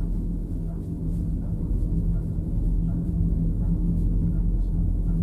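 Ride noise inside a two-seat IMES cabin of the 1972 Trojer fixed-grip gondola travelling along the line: a steady low rumble with a constant low hum.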